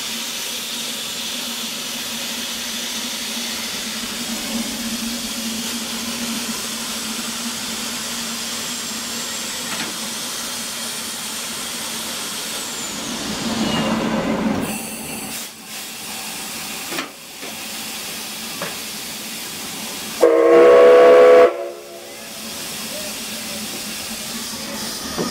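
1881 Baldwin steam locomotive hissing steadily as steam vents around it. About twenty seconds in, its steam whistle gives one loud blast lasting over a second.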